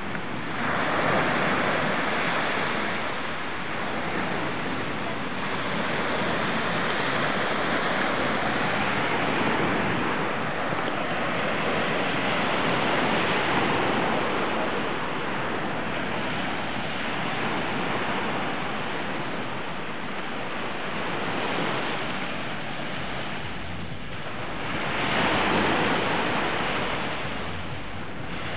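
Small Black Sea waves breaking and washing up a sandy beach, the surf swelling and easing in slow surges.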